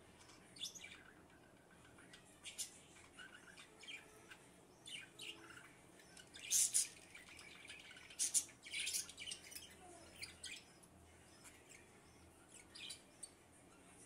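Budgerigars giving short, scattered high-pitched chirps, with the loudest cluster about halfway through.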